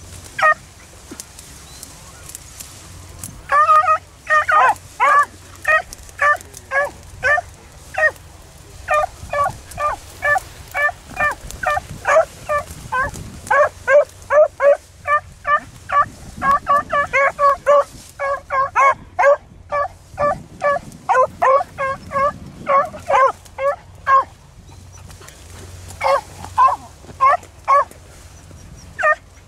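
Beagles baying in short, repeated cries, about two a second, as they run a rabbit's track. The cries start a few seconds in, stop briefly near the end, then pick up again.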